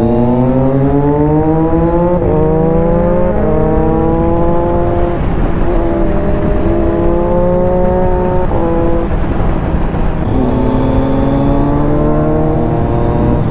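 Motorcycle engine accelerating through the gears: the pitch climbs and drops back at each upshift, about two, three and five seconds in, then holds steady at cruising speed. Near the end the revs fall and climb again.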